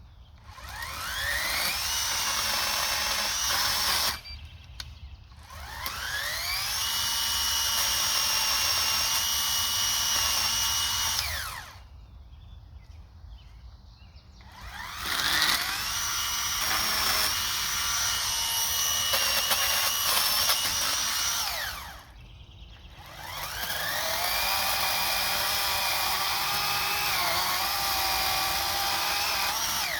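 Electric chainsaw cutting up fallen pine trees, run in four long bursts. Each burst winds up with a rising whine, holds steady at a high pitch while cutting, then winds down.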